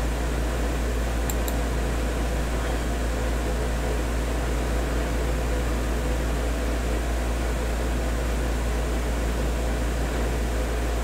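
Steady low hum with an even hiss, the background noise of the recording, with two faint clicks under a second in.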